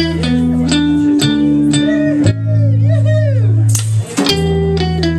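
Live band playing: electric bass holding long low notes under electric guitar, with pitch-bending lines in the middle.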